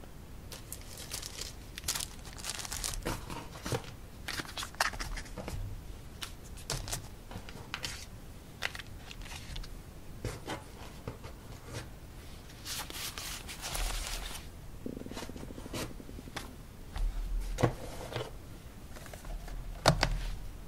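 Boxed playing-card decks, plastic packaging and a metal card tin being handled and set down by hand: a string of soft taps, scrapes and crinkles, with a couple of sharper knocks near the end.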